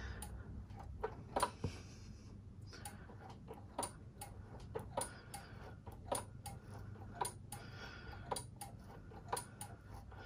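Faint, light clicks at an uneven pace, two or three a second, from the work of bleeding a motorcycle's front hydraulic brake, with the bleed nipple open and fluid being pumped through.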